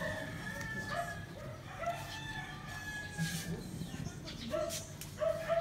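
Short bird calls repeating about once a second, with leaves rustling as a hand moves through a potted pothos.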